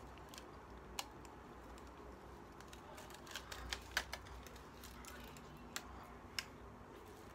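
Chewing a mouthful of chicken burrito, with scattered sharp clicks from the mouth and from the aluminium foil wrapper being handled. The clicks fall once about a second in, several together a little after three seconds, and twice near the end.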